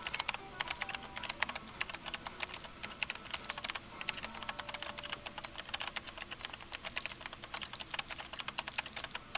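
Rapid, irregular light clicks and taps, several a second, like fast typing.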